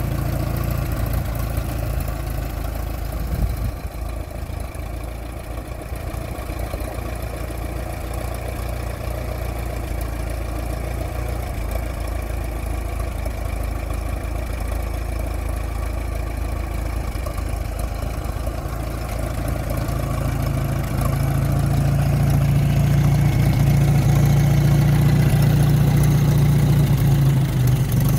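Volvo T31 tractor's large kerosene engine idling steadily, then revved up about two-thirds of the way through and held at a faster, louder pace.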